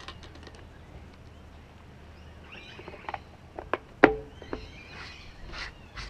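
A handful of sharp clicks and knocks from a plastic container and lid being handled on a wooden board, the loudest about four seconds in. Faint bird chirps sound in the background.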